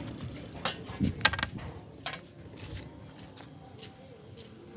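A few sharp clicks and clinks of small hard objects being handled, the loudest about a second in.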